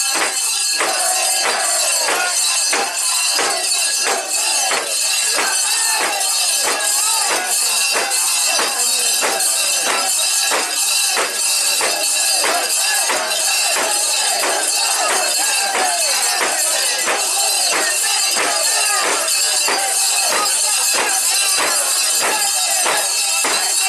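Metal fittings of a Japanese portable shrine (mikoshi) jangling in a steady beat, about two to three strokes a second, as the bearers shake it, with a crowd of bearers chanting along.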